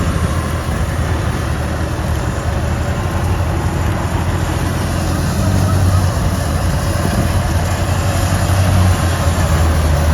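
Tractor-driven wheat thresher running steadily: a constant engine hum under an even rushing noise.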